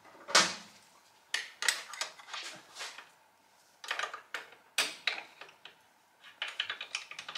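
Metal clinks and knocks from motorcycle front-end parts being handled: an aluminium triple clamp and its fixings tapping against the steel steering stem. The sounds come in four short clusters of sharp clicks with quiet gaps between.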